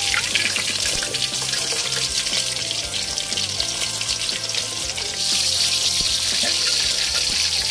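Flour-coated chicken pieces frying in hot oil in a wok, a steady crackling sizzle that grows louder about five seconds in.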